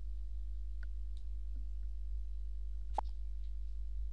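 A steady low hum with a few faint clicks and one sharper click about three seconds in, the clicks of a computer mouse.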